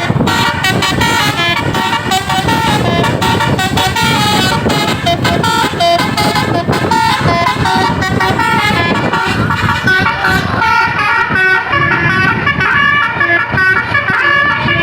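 Tour bus's basuri 'telolet' musical air horn playing a fast melody of short stepped notes, over a steady low rumble.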